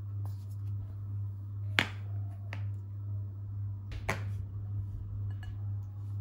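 A few sharp taps and clicks of hard objects on a glass-topped table, the loudest about two seconds in, over a steady low hum.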